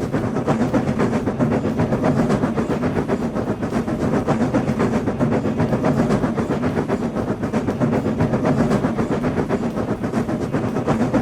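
Train sound effect: a train running along the rails, a steady rumble with rapid clatter.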